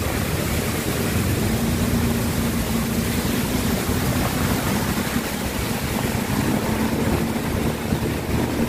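Heavy rain pouring down, heard from a car driving along a streaming wet street: a steady, loud hiss of rain and water, with a faint steady low hum of the car underneath.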